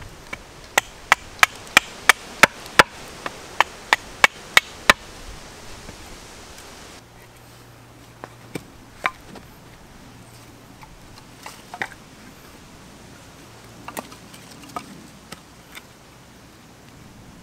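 Small hatchet chopping into the end of a green sapling pole: about a dozen sharp strikes, roughly three a second, over the first five seconds. Later, scattered lighter knocks of short cut wooden lengths being handled and set down.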